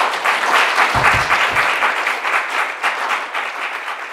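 Audience applauding, peaking about a second in and then slowly dying away, with a few low thumps about a second in.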